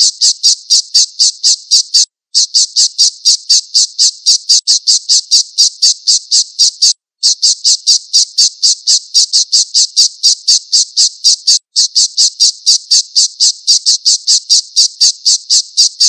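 Alap-alap (kestrel) calling in a rapid run of sharp, high-pitched repeated notes, about five a second, with three short breaks. The run cuts off suddenly at the end.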